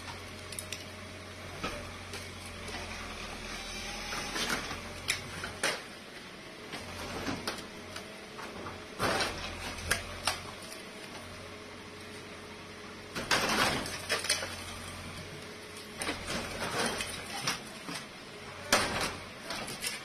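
A bulldozer demolishing a mud-walled house and its boundary wall. The engine hums while clattering crashes of breaking wall and falling debris come in several bursts, the loudest about thirteen seconds in and again near the end.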